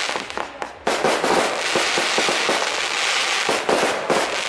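Aerial fireworks bursting with dense crackling and popping; a sharp burst just under a second in sets off a fresh wave of crackle that keeps going.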